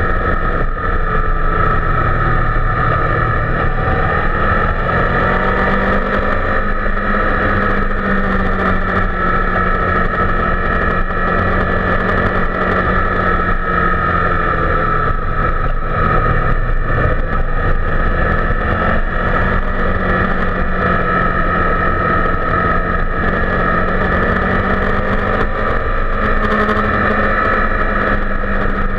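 Honda VFR800's V4 engine running at a steady road speed as the motorcycle is ridden, heard from a camera mounted on the bike. The engine note rises and falls slightly a few times with the throttle.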